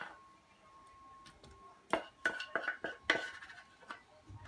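A spatula scraping and knocking against the inside of a saucepan as thick béchamel sauce is scraped out, in a cluster of sharp scrapes and clinks about two to three seconds in.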